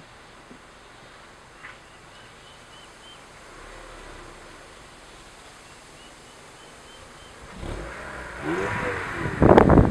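Quiet background with a few faint high chirps. Near the end an Acura RSX Type-S's K20A2 four-cylinder engine comes up and revs, rising in pitch, and then loud wind buffeting hits the microphone.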